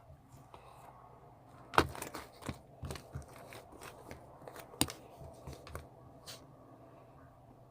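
Crinkling and tearing handling noise, as of paper or plastic being crumpled, with scattered sharp crackles; the strongest come about two seconds in and again near five seconds.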